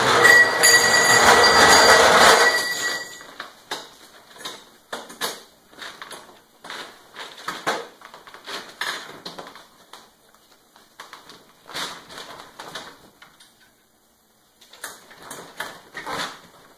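Casters of a wheeled shop stool rolling across a concrete floor for about two and a half seconds, with a faint whine in the rumble. After that come light, scattered metal clinks and rattles as threaded rod and frame pieces of a lawn sweeper hopper are handled and fitted.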